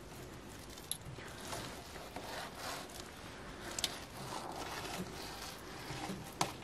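Knife slicing and scraping through pike flesh on a cutting board while filleting: faint drawn strokes with a few small sharp clicks.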